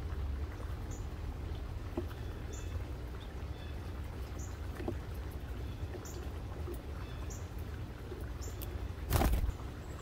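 Female northern cardinal pecking at seed on a wooden board, with scattered soft taps, while short high bird chips repeat about once a second. About nine seconds in, a brief loud whoosh of wingbeats as the cardinal flies off.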